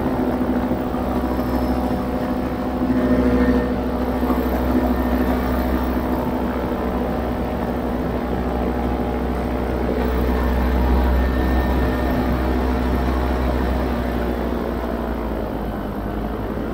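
Paramotor engine and propeller running steadily in flight, an even drone that holds its pitch throughout.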